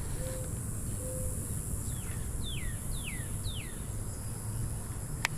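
Pondside outdoor ambience: a steady high buzz of insects, with a bird giving four quick falling whistled notes about two seconds in, and a low rumble of wind on the microphone. A single sharp click near the end.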